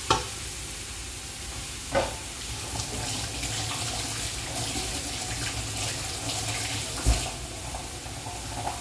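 Saluyot (jute leaves) sizzling and steaming in a large stainless steel stockpot, a steady hiss. A wooden spoon knocks against the pot three times: at the start, about two seconds in and about seven seconds in.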